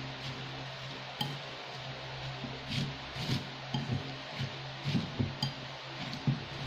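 Metal utensil clinking and scraping against a ceramic bowl while stirring crushed crackers and tuna, with scattered soft knocks and a few sharp clinks. A steady low hum runs underneath.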